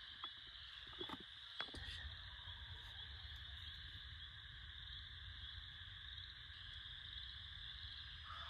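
Faint, steady chorus of distant frogs, with a few soft clicks in the first two seconds and a low rumble coming in about two seconds in.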